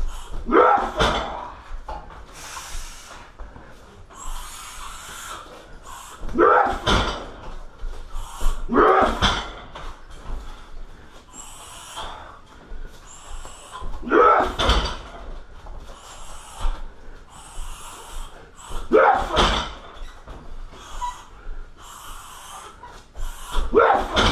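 Shin kicks striking a car tyre on a heavy boxing stand, six heavy impacts a few seconds apart, each with a short rattling smear. Sharp breaths through the nose come between the kicks.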